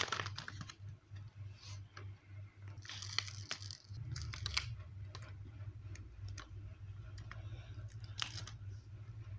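Plastic sticker sheet being handled: crinkles and light ticks as stickers are peeled off and picked up with tweezers, the crinkling strongest around three to four and a half seconds in. A low steady hum runs underneath.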